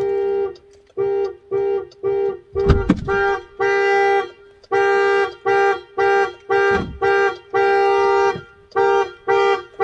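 Jeep car alarm going off: the horn honks in repeated blasts, about two a second, a few held longer. It was set off by trying to start the SUV while it was locked with the occupants inside.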